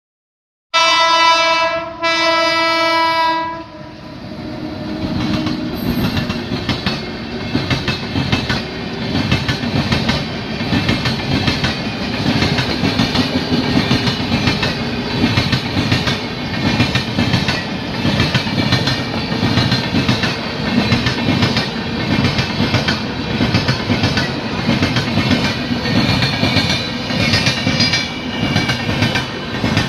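Express train sounding two horn blasts, then running past at speed with the rapid, continuous clickety-clack of its wheels over the rail joints.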